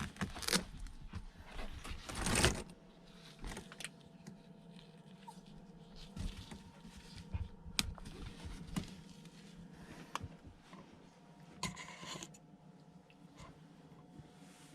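Small handling sounds in a small room: scattered clicks and taps, with louder rustles about half a second in, near two and a half seconds, and again about twelve seconds in.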